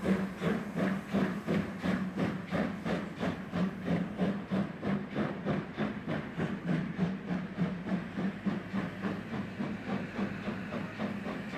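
Steam locomotive chuffing: an even beat of exhaust puffs, about four to five a second, over a steady low rumble, slowly getting quieter.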